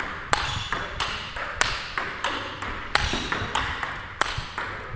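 Table tennis rally: a plastic ping-pong ball struck back and forth by two rackets and bouncing on the table between strokes, a steady series of sharp clicks about three a second.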